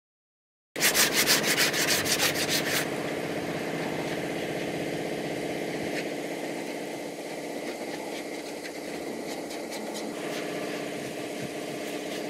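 Sandpaper rubbed quickly back and forth over a car door panel insert, about six strokes a second for two seconds. Then lighter rubbing continues over a steady low hum.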